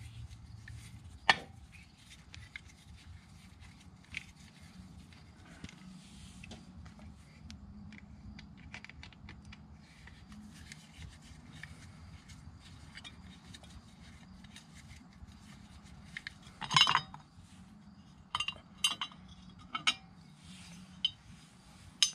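Scattered metallic clicks and clinks of an Allen wrench and loose screws as the Allen head screws of a Harley-Davidson primary inspection cover are worked out. A louder clatter comes about three-quarters of the way through, followed by several sharp clinks.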